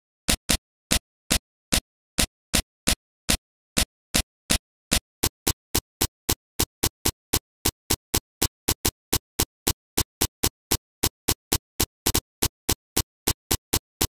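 Plastic keycaps snapping one by one onto the switch stems of an RT101 keyboard, each a short sharp click with silence between. The clicks come at about three a second at first and quicken to about four a second.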